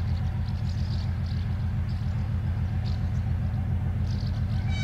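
Soviet TE10-family diesel locomotive's two-stroke 10D100 engine working under power as it approaches, a steady deep rumble. Its horn starts sounding right at the very end.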